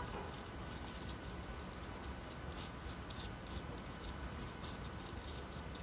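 Fingertip rubbing and spreading ground coffee across a sheet of paper: faint, short scratchy rustles, on and off.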